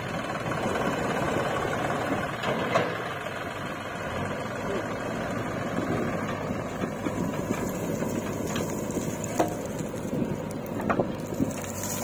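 Diesel engines of a JCB backhoe loader and a tractor running steadily while the backhoe digs soil, with a few faint knocks in the second half.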